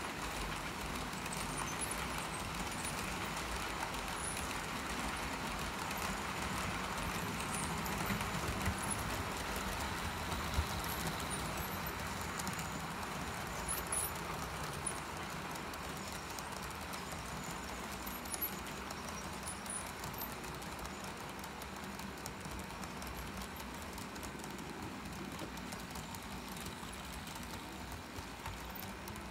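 Several HO-scale model trains rolling over the layout's track and turnouts: a steady running rumble, a little louder in the first half, with a few short clicks scattered through it.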